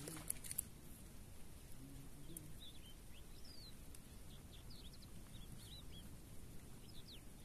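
Small birds chirping in short, quick rising and falling notes over a steady low outdoor hiss, with a few sharp light clicks about half a second in.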